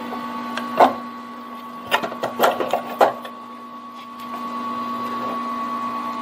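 Sharp metallic clicks and knocks from handling the mini lathe's sheet-metal electrical box cover, loudest about a second in and again two to three seconds in, over a steady electrical hum.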